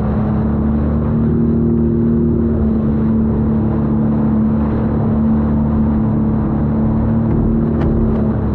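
Personal watercraft (jet ski) engine running at a steady high cruising speed, its tone holding level, under the rush of water and spray against the hull.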